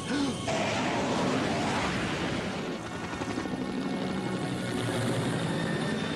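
A steady, continuous drone like aircraft engines in flight, part of a cartoon's sound-effects track.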